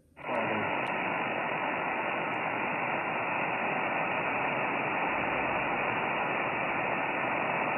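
Steady static hiss from a ham radio receiver tuned to single sideband on the 20-metre band, with no signal on the frequency. It cuts in abruptly just after the start and is held to a narrow voice-width band by the receiver's filter.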